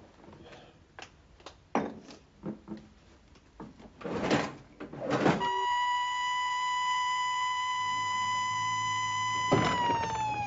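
A few scattered knocks and clatters, then a work-site siren sounds one loud steady note with several overtones for about four seconds. Near the end its pitch starts sliding steadily down as it winds down.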